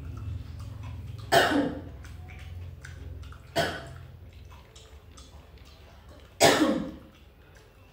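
A person coughing three times, single loud coughs a couple of seconds apart, the last the loudest.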